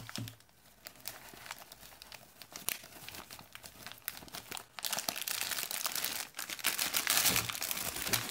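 A bag holding a power supply's modular cables being opened and handled, crinkling and rustling. It starts sparse, with scattered rustles, and grows denser and louder about five seconds in.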